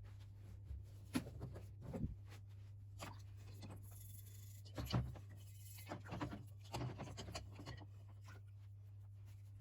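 Scattered light knocks, clicks and scraping from hand work on small metal parts, over a steady low hum.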